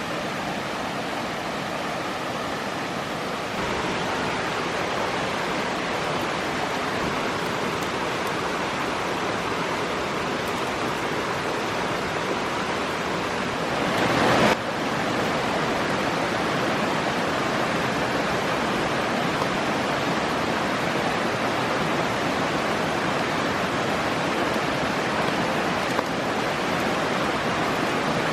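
Stream water rushing steadily, with a brief louder swell about halfway through.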